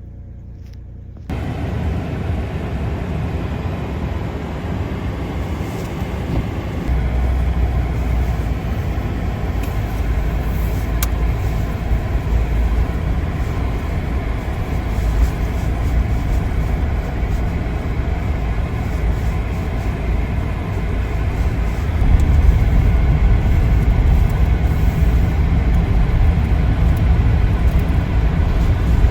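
Truck running with a steady low rumble of engine and road noise. It starts suddenly about a second in and grows louder about seven seconds in and again past the twenty-second mark.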